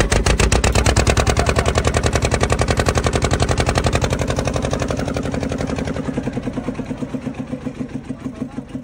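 Small fishing boat's engine running with a rapid, even chugging that slows and gets quieter over the second half.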